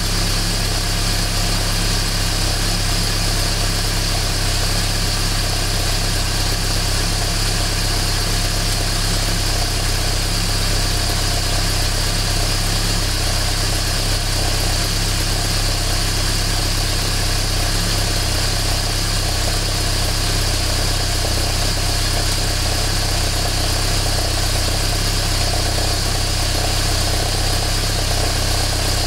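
BMW E46 318i idling after a cold start with its secondary air pump running, a loud steady bubbling and rattling ('boko-boko', 'kata-kata') over the engine. The owner takes it for an abnormal noise from the air pump.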